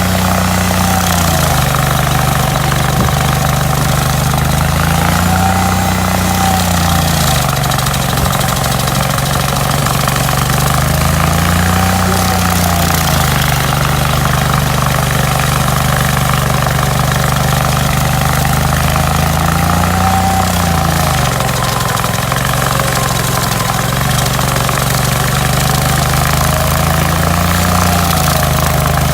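Hydraulic stump grinder's engine running steadily while grinding a stump, its engine note rising briefly and dropping back four times, about every seven seconds.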